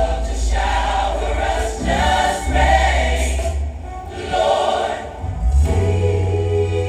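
Gospel choir singing with musical accompaniment and a steady low bass underneath.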